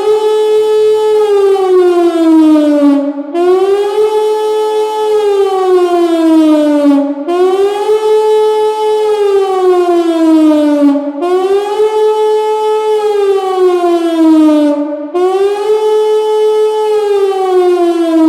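Pintsch Bamag HLS (Anlage 2) high-performance civil-defence siren sounding the rising-and-falling public warning wail. Each cycle takes about four seconds: a quick rise, a short hold at the top, then a long slide down. The cycle repeats five times.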